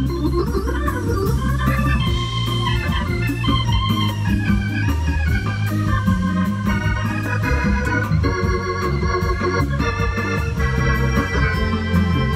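Live band music led by a Hammond-style organ voice played on red stage keyboards, over a stepping bass line and regular high cymbal ticks.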